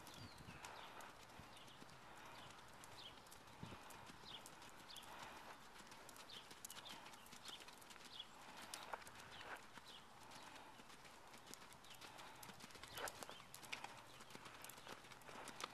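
Faint hoofbeats of a paint pony cantering and trotting on sand arena footing.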